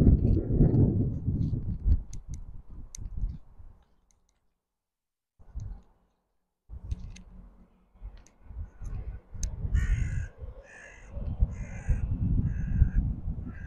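A bird calls about five times in quick succession near the end, over a low rumbling noise that drops out for a couple of seconds midway.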